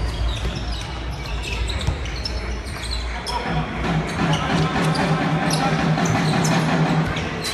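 Basketball game in an echoing sports hall: the ball bouncing on the hardwood court and sneakers squeaking, over spectators' voices. A steady low hum comes in about halfway through.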